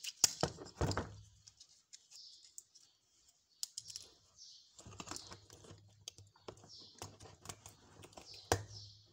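Small metallic clicks and knocks of a Piaggio Ciao moped carburettor and its fittings being handled and fitted by hand, with the sharpest clicks near the start and near the end. A faint low hum and a run of faint high chirps sit underneath.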